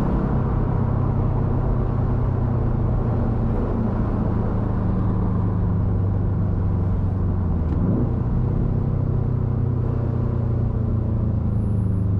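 2013 Subaru STI's turbocharged 2.5-litre flat-four running through a Tomei Expreme Ti titanium exhaust at steady low revs, a deep even drone. A brief rise and fall in pitch comes about eight seconds in.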